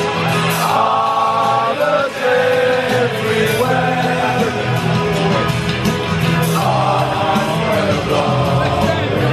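Music: a song with sung vocals over a steady bass line.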